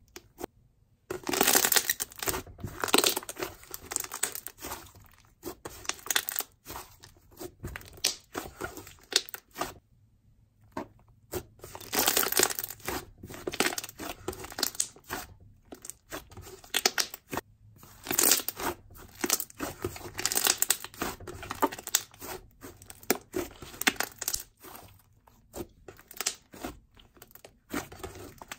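Fluffy clay slime being squished, kneaded and stretched by hand, squelching in irregular bursts with many small crackling bubble pops. There is a brief pause about ten seconds in.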